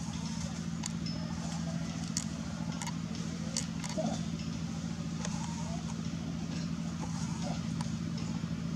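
Steady low hum of a running engine, with a few faint short calls and scattered light clicks over it.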